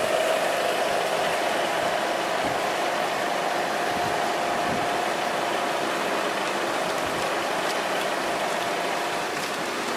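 A steady engine hum idling under the wash of surf, fading out near the end and leaving only the surf.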